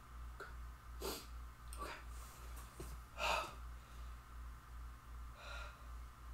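A man's faint breaths, four short ones, the loudest about three seconds in. Under them runs a low, evenly pulsing hum.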